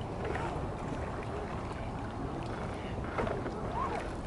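Steady low wind noise on the microphone and water lapping against an idling boat's hull.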